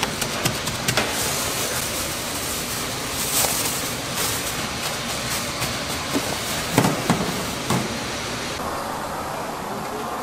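Steady mechanical running noise with scattered clatter and knocks; the loudest knocks fall around two-thirds of the way through.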